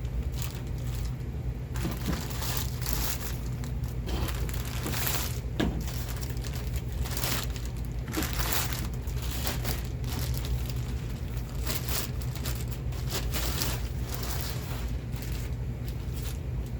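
Plastic bag crinkling and rustling as it is pulled off a long rifle, in an irregular run of crackles that goes on throughout.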